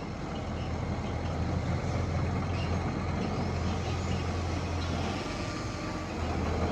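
Engine of a heavy earthmoving machine, a bulldozer or dump truck, running with a steady low drone that eases slightly about five seconds in and picks up again near the end.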